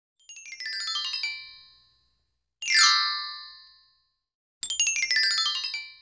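Three sparkly chime flourishes about two seconds apart. The first and last are quick descending runs of high tinkling notes, the middle one a fast downward glissando, and each rings out and fades.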